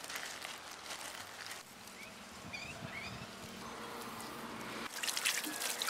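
Hands pressing and crumbling loose, dry soil around a planted sapling, with a bird chirping a few short notes partway through. About five seconds in, water starts pouring from a jug onto the soil, splashing and trickling.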